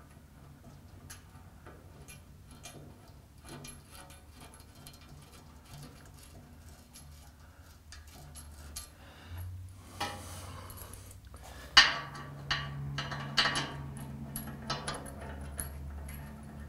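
Scattered light metallic clicks and clinks of bolts being worked up through a lathe pedestal into the bed, busier in the second half, with a scuffing rustle about ten seconds in and a sharp clank just after it.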